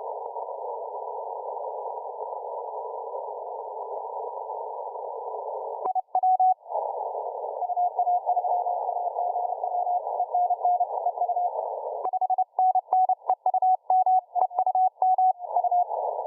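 Shortwave radio receiver audio through a narrow CW filter: band-limited hiss for about six seconds, then a Morse code signal comes through as a single-pitch tone keyed on and off. The keying into dots and dashes is plainest in the last four seconds, with faint clicks.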